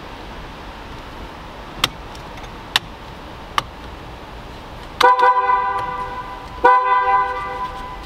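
Nissan 370Z's car horn honked twice through the newly wired horn button on an aftermarket quick-release steering wheel, each honk over a second long, showing that the horn wiring works. Three short clicks come before the honks.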